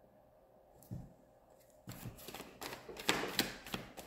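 Tarot cards being shuffled and handled, a quick run of flicking, riffling clicks starting about two seconds in, after a single low thump about a second in.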